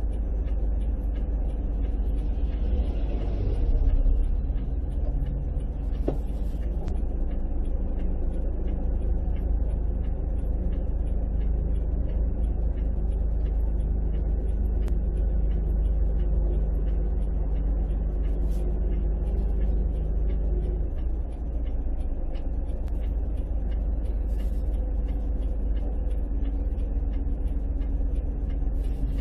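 Steady low rumble of a moving road vehicle, with an engine hum whose pitch shifts about two-thirds of the way through.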